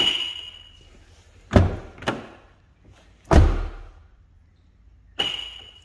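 Pandora Mini BT car alarm gives a short chirp, then come two knocks and a car door shutting with a heavy thud, the loudest sound. The alarm chirps once more near the end.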